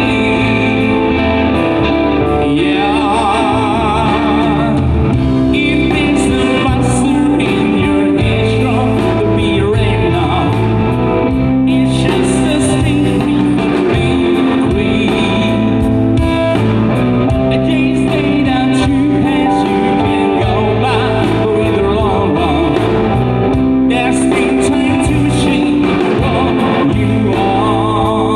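A live rock band playing: a singer with electric guitars, bass and drum kit, going on without a break.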